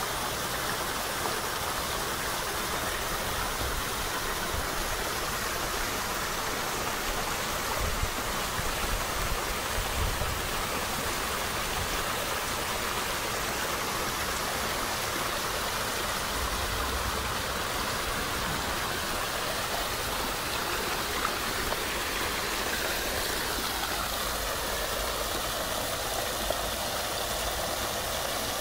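Water spilling steadily over a small rock waterfall into a garden pond, with a continuous splashing rush.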